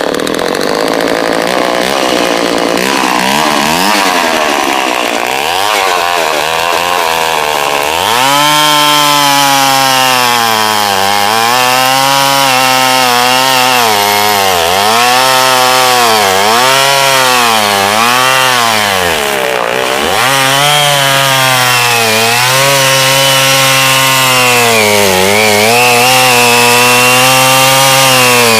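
Homelite 3100G 114 cc two-stroke chainsaw engine running. It runs fairly steady for the first several seconds, then is revved up and let back down over and over, the pitch rising and falling every second or two.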